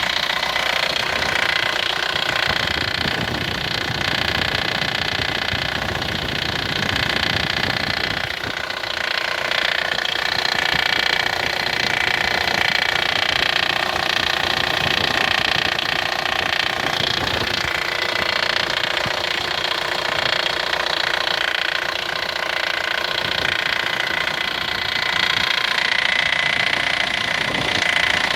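Nissan NP300 pickup running with a rapid, steady crackling rattle over the engine sound. The crackle appears only when the frost drops below about −21 to −22 °C, and its source has not been found.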